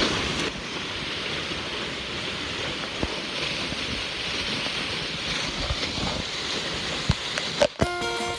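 Waterfall pouring, a steady even rush of falling water. Guitar music comes in near the end.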